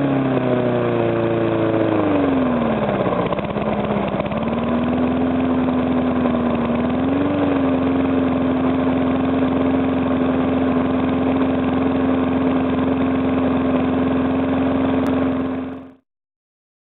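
Rebuilt Briggs & Stratton small engine drops from a higher speed to a steady idle a couple of seconds in, with little knock, its piston rings rearranged to stop compression leaking past the piston. The sound cuts off abruptly near the end.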